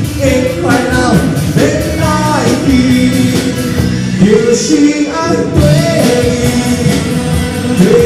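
A live band playing a pop-rock song, with electric guitars, drums and keyboard under a singing voice, and cymbal crashes now and then.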